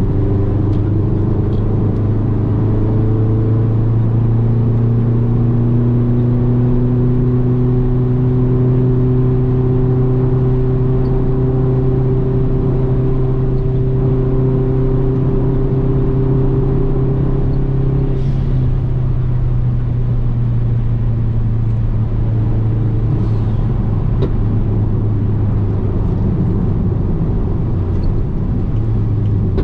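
Subaru WRX's flat-four engine running hard at a nearly constant pitch as a steady drone for about two-thirds of the time. After that the tone loosens and wavers, and near the end it drops in pitch.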